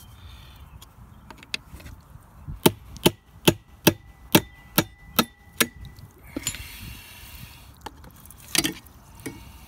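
About nine sharp knocks, two or three a second, of a tool striking the metal housing of a Flint & Walling CJ101 jet pump to break it loose, with a thin metallic ring under them. A scrape follows, then one more knock near the end.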